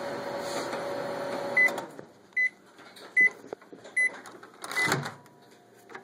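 Microwave oven running with a steady hum, shutting off about two seconds in, followed by five short high beeps that signal the end of the cycle. A sharp clunk near the end as the oven door is opened.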